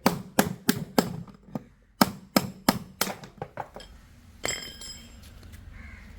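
Hammer blows driving a metal rod against the worn drum bearing of an IFB washing machine to knock it out of its housing, sharp metal-on-metal strikes about three a second in two runs. About four and a half seconds in comes a single ringing metallic clink.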